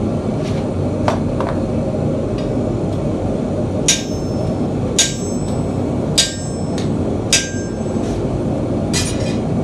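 Hammer blows on a rounded punch, held in a holder, stamping scales into hot 10-gauge mild steel plate: four sharp ringing strikes about a second apart, with lighter taps near the end. Under them runs a steady rushing noise, likely the gas forge.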